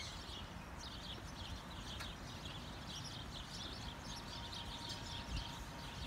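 Small birds chirping, many short high calls repeating over a low, steady outdoor rumble.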